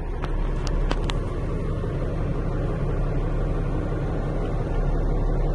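Diesel truck engine idling steadily, heard from inside the cab, with a few light clicks in the first second or so.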